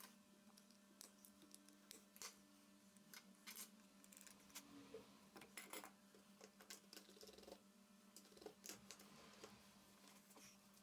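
Near silence: faint, irregular light clicks and taps over a steady low hum.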